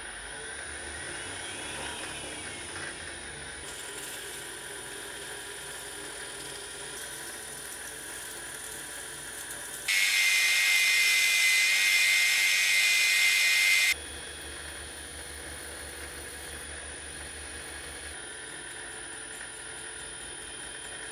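Machine-tool spindle turning a cast-aluminium flange in a three-jaw chuck, running with a steady hum. About ten seconds in, a powered belt file grinds against the spinning aluminium for about four seconds, loud and hissy with a high grinding tone. Then the spindle runs on alone.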